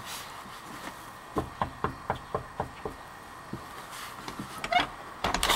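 Knocking on a wooden door: about seven quick, even raps, roughly four a second, starting a bit over a second in.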